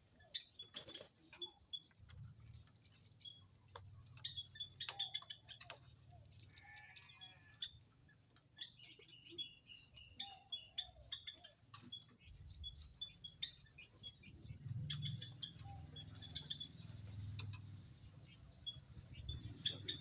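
Common ioras giving many short, high chirps in quick irregular series, with a brief trill about seven seconds in. Scattered faint clicks and a low hum sit underneath, the hum louder in the second half.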